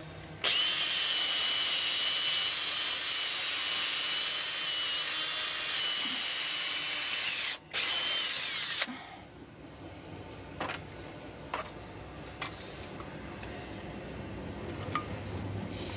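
Cordless drill running steadily for about seven seconds while enlarging a hole in a bark-covered branch. It stops for a moment, runs again for about a second and winds down. After that come a few light knocks and clicks as the pieces are handled.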